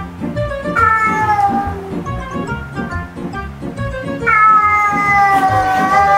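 Cat yowling in long, drawn-out cries that slowly fall in pitch: a short one about a second in, then a longer one starting about four seconds in. It is the warning yowl of two cats in a tense standoff over food. Background music plays underneath.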